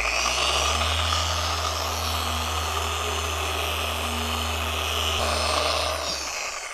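Random orbital polisher running steadily on freshly painted and clear-coated bodywork during the final polishing stage, then winding down near the end.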